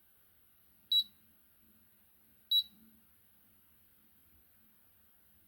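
Raymarine ST60 Tridata instrument beeping twice, two short high beeps about a second and a half apart, as its push buttons are pressed in a button test.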